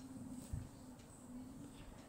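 Faint handling of a paper cut-out: hands pressing and smoothing taped paper flat, with a soft thump about half a second in.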